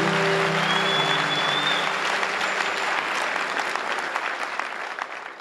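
Audience clapping, with a short whistle about a second in, as the last notes of a song die away underneath. The applause fades out steadily toward the end.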